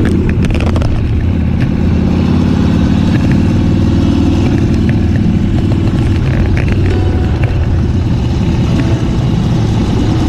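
Harley-Davidson Dyna Street Bob's V-twin engine running steadily as the motorcycle rides along a street, picked up by a camera clamped on the bike. There are a few sharp knocks and clicks near the start.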